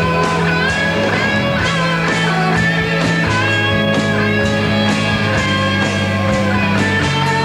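Rock band playing an instrumental passage: an electric guitar lead line with bent notes over sustained bass and a steady beat.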